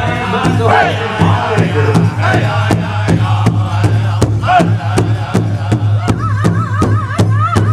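Large powwow drum struck in unison by a group of singers at a steady, even beat, under a chorus of male voices singing a chanted song in high, strained voices.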